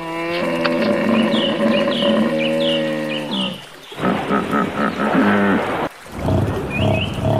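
A large animal's long, low lowing call that glides up at its start and lasts more than three seconds, followed by two shorter calls after brief pauses. Short high chirps repeat above the first and last calls.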